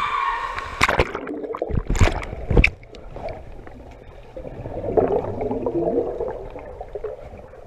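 Swimming-pool water splashing loudly a few times as the camera goes under, then the muffled sound of water heard from below the surface, swelling again about five seconds in.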